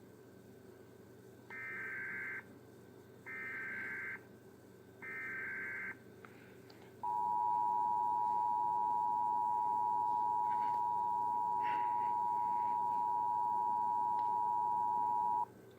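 Emergency Alert System broadcast tones: three bursts of the digital SAME header, each about a second of warbling data tones, then the EAS attention signal, a steady two-note tone held for about eight seconds that cuts off abruptly.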